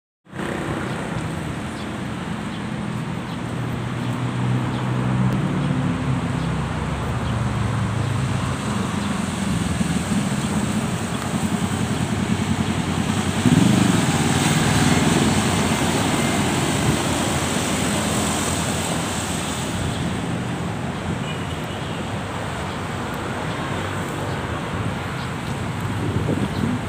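City road traffic: a steady hum of car and motorcycle engines and tyre noise, with one vehicle passing close and loudest about halfway through.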